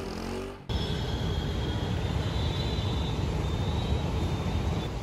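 Background music cuts off under a second in, giving way to steady city street noise: traffic with an elevated metro train running overhead, with a faint high wheel whine.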